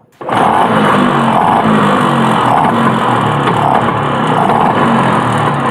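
1994 Bajaj Super 150 scooter's two-stroke single-cylinder engine running, just started after years of sitting unused. It cuts in suddenly a moment in, then runs loud and steady.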